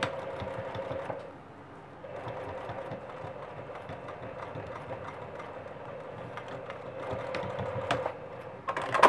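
Juki sewing machine running at a steady speed, stitching across a fabric bag's corner; it stops about a second in, starts again a second later, and runs until near the end, where a sharp clack sounds.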